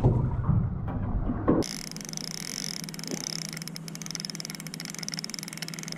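Wind buffeting and handling noise on the microphone for the first second and a half. After that, a spinning reel is wound steadily, its gears giving off fine rapid ticking over a low steady hum.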